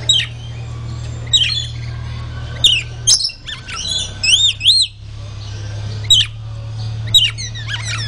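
Rainbow lorikeets screeching: short, sharp calls about once a second, with a quick run of chattering notes around the middle, over a steady low hum.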